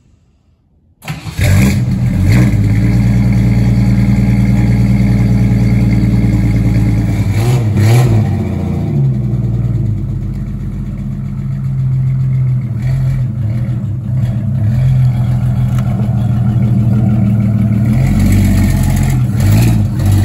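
1963½ Ford Falcon Futura's 170 cubic-inch inline six starting about a second in, then running steadily. It is revved briefly a few times: just after it catches, around eight seconds in, and again near the end.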